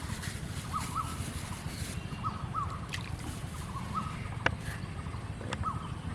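A bird calling repeatedly in short paired notes over a steady low rumble, with one sharp click about four and a half seconds in.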